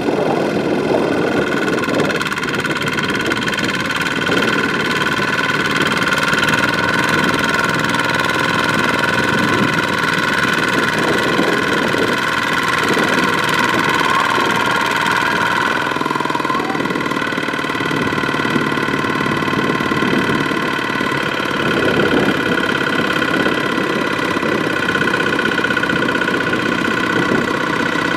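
Kubota RT155 single-cylinder diesel engine of a two-wheel tractor running steadily under load, pulsing rapidly, as the rice-laden tractor is stuck in deep mud.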